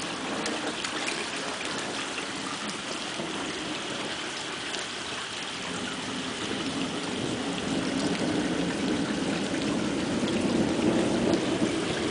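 Steady rain falling on standing water and wet grass, pattering with many small drops, growing a little louder in the second half.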